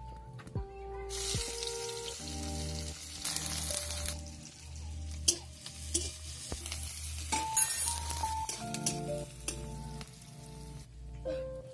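Sliced onions frying in hot oil in a wok over a wood fire: a loud sizzle starts suddenly about a second in as they go into the oil, with a metal spatula clicking and scraping against the pan as they are stirred.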